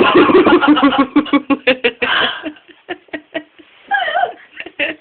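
People laughing hard: a loud run of rapid ha-ha pulses for about two and a half seconds, trailing off into scattered short giggles, with a brief burst of voice near the end.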